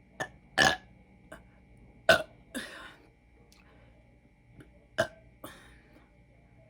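A woman burping from gulped carbonated soda (Tahitian Treat): a string of short burps in the first three seconds, the loudest about two seconds in, then two more about five seconds in.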